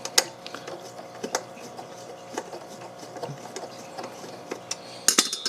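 Scattered small metallic clicks and ticks of a screw being turned by hand into the FitDesk under-desk elliptical's base, spinning without tightening: the owner thinks the thread is stripped or the shank too narrow for the hole. A louder cluster of clicks comes near the end, over a faint steady hum.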